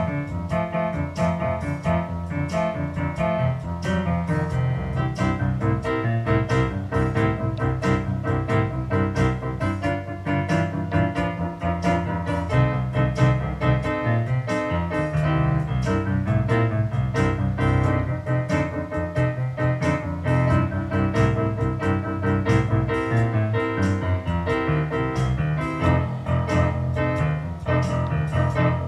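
Solo piano music played on a Yamaha P515 digital piano: a steady run of notes over a sustained low bass.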